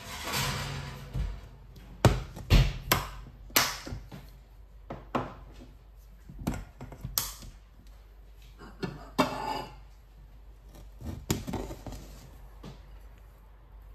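A string of sharp knocks and clatters of cookware and utensils being handled and set down in a small kitchen, densest about two to four seconds in, with a brief scraping rustle about nine seconds in.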